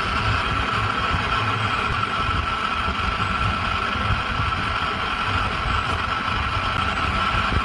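Steady hiss of television static from a CRT TV's speaker, with a constant high tone running through it.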